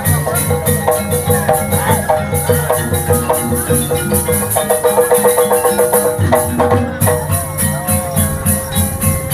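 Gamelan music accompanying an ebeg trance dance. Struck metal-keyed mallet instruments play quick repeated notes over a low drum pattern and a steady high beat about three times a second.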